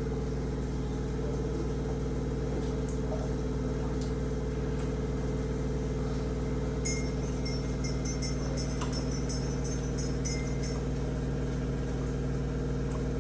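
Steady low electrical hum, like a running appliance or mains buzz. Past the middle comes a few seconds of faint, quick, high ticking.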